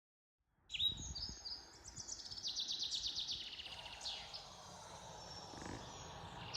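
Songbirds singing: after a brief silence, a falling chirp, then a fast trill of rapidly repeated high notes and a few more scattered calls, faint over low background noise.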